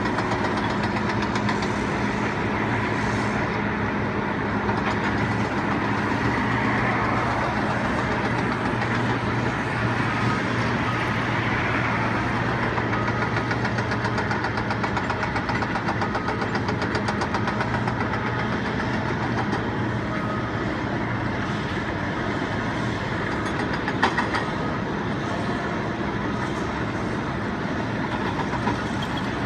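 A large engine running steadily with a deep hum, and one sharp knock late on.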